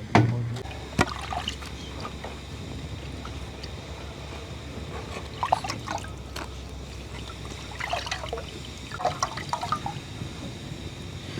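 Liquid trickling and splashing in short spells, with a few sharp knocks in the first second.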